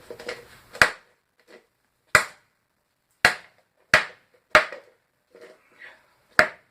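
Hammer blows striking a high-impact plastic pump housing, six sharp hits at uneven intervals. The housing does not crack open.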